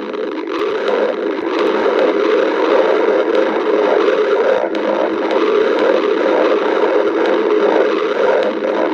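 Human stomach growling: a continuous, noisy rumble without a break.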